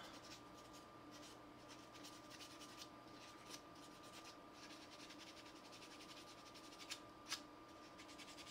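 Faint light scraping and rubbing of a small tool on a resin model part as small blemishes are cleaned off, with a couple of small ticks in the second half.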